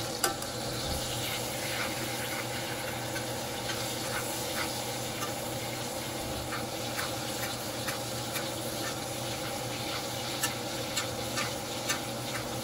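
Ribeye steaks sizzling in melted butter in a cast-iron skillet: a steady frying hiss with scattered small pops. A metal spoon clicks against the pan as the butter is basted over the meat, most often near the end.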